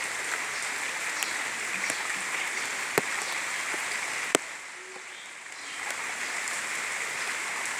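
Steady rain falling, with two sharp knocks about a second and a half apart near the middle. After the second knock the rain turns quieter for a second or two, then comes back up.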